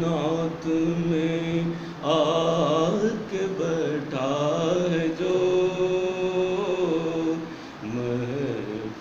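A man's solo voice singing a naat, a devotional poem in praise of the Prophet Muhammad, with no accompaniment. He sings in drawn-out, wavering phrases with short breaks, holding one long note from about five to seven seconds in.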